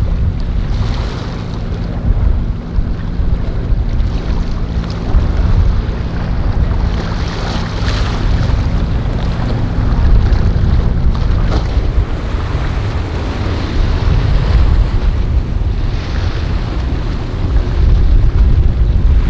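Motorboat engines running through rough water, with waves washing and splashing in several swells and heavy wind rumble on the microphone. A steady engine drone holds through about the first half.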